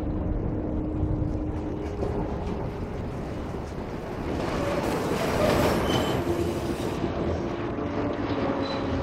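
Drama sound-design ambience from the overhead channels: a dense rumbling wash with a few faint held tones, swelling to its loudest about five to six seconds in.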